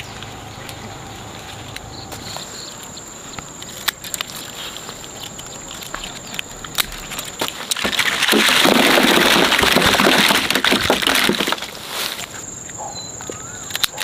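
Roselle calyxes falling into a woven bamboo basket: a dense rattling patter lasting about three and a half seconds, starting about eight seconds in. Before it there is light rustling of the bushes and scattered clicks as calyxes are picked, under a steady high-pitched whine.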